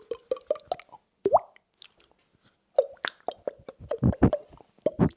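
Mouth sound effects by a beatboxer: a run of quick tongue clicks and cheek pops, each with a short hollow pitch, like water drops. About a second in comes one pop whose pitch quickly rises. After a short pause the pops come back faster and louder.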